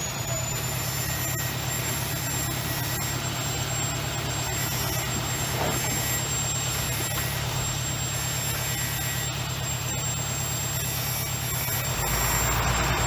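Heavy diesel engine of earthmoving equipment running steadily with a deep pulsing rumble and a thin high whine. The low rumble grows louder near the end.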